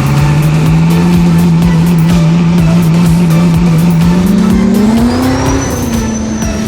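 A vehicle engine held at steady high revs for about four seconds, then revving higher. A thin high whistle sets in near the end.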